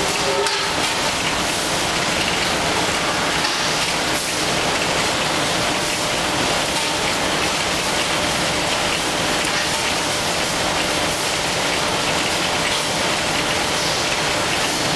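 Automatic facial tissue production line running: a steady, dense, hiss-like machine din from the conveyor and packing machinery, with a faint steady hum under it.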